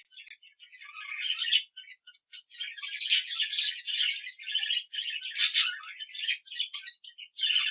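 Small birds chirping and twittering in a rapid, high-pitched stream of overlapping calls, with sharper, louder notes about three and five and a half seconds in.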